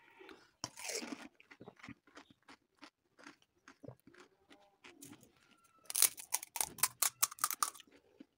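Crisp, hollow fried puri shells crackling as a thumb punches a hole through the top of each one. A run of short, sharp crunches, loudest and most frequent in a burst near the end.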